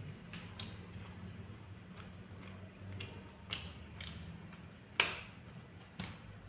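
Small scattered clicks and ticks of someone eating with his hands, fingers picking apart roast chicken and rice and tapping the plate. The sharpest click comes about five seconds in, over a faint steady low hum.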